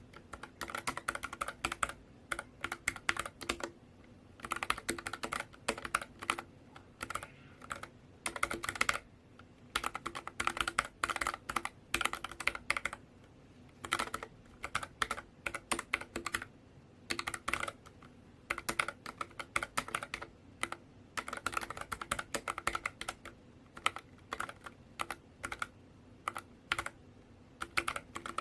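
Typing on a NuPhy Air60 low-profile mechanical keyboard: runs of quick, light key clicks in bursts of a second or two, with short pauses between them.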